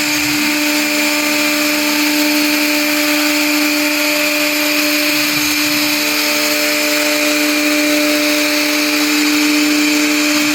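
CNC router spindle running at steady speed, routing composite panel: a loud, unbroken machine whine with a few steady tones over a hiss.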